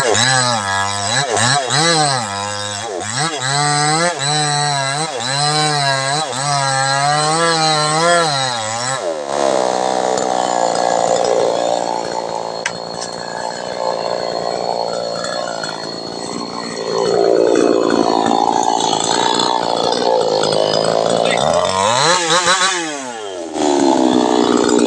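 New West 628 two-stroke chainsaw revving up and down about once a second, then cutting into a jengkol tree trunk under load with a rougher, steadier sound. Near the end the engine speed dips briefly and then climbs again.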